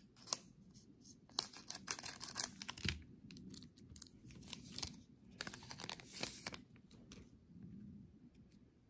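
A trading-card pack's plastic wrapper being crinkled and torn open and the cards handled. It comes as scattered sharp rustles and clicks with short quiet gaps between them.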